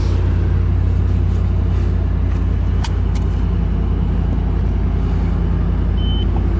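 Lexus GX470's 4.7-litre V8 idling steadily shortly after a cold start, a low even drone heard from inside the cabin, with two light clicks about three seconds in.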